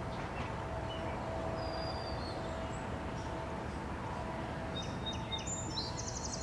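Birds chirping over a steady low rumble with a faint steady hum, the departing diesel freight train heard in the distance. There is a short high bird note about two seconds in and a run of quick chirps near the end.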